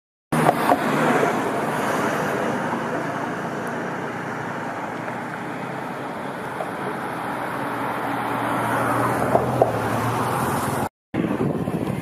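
Road traffic going by: cars passing, the noise swelling and easing, with a brief dropout near the end.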